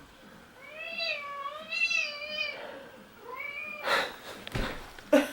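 Domestic cat meowing loudly to be fed: one long wavering meow, then a shorter one. Near the end come a few sharp knocks, the last one the loudest sound here.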